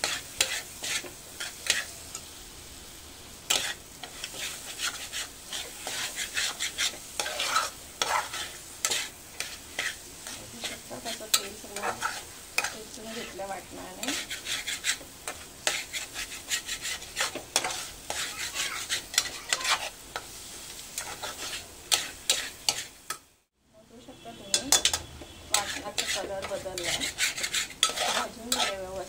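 A spoon scraping and stirring a thick gram-flour and coconut paste as it fries in oil in a metal pot, in quick irregular strokes over a steady sizzle. The paste is being stirred constantly so that the gram flour does not stick to the bottom. The sound cuts out briefly about three-quarters of the way through, then the scraping picks up again.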